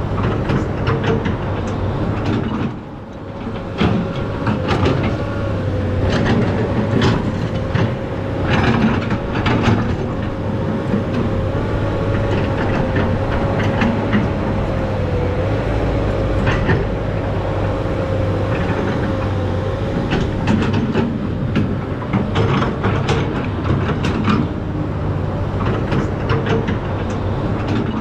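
SANY SY215C hydraulic excavator at work: its diesel engine runs steadily under load, with repeated clanks and knocks. A wavering whine rises about four seconds in and stops around twenty seconds.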